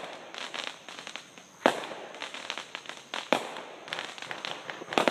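Fireworks and firecrackers going off: three loud sharp bangs spaced about a second and a half apart, over a steady scatter of smaller pops and crackling.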